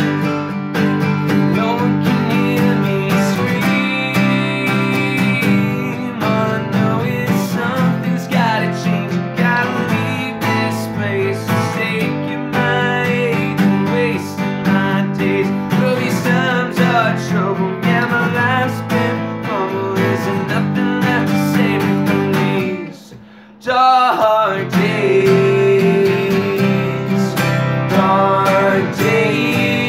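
Two acoustic guitars strummed together with sung vocals, a Fender among them. The music stops for about half a second around 23 seconds in, then comes straight back in.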